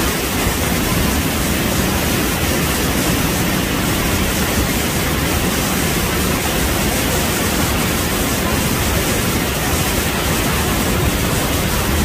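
Banias Waterfall in heavy flow after winter rains: a loud, steady rush of falling water, deepest at the low end.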